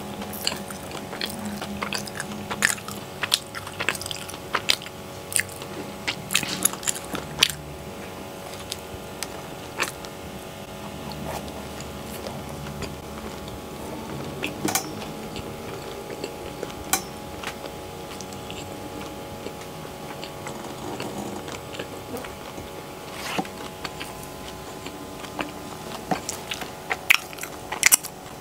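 Close-miked chewing of soft, buttery cheese bread, with sharp wet mouth clicks and smacks, busiest in the first several seconds and again near the end.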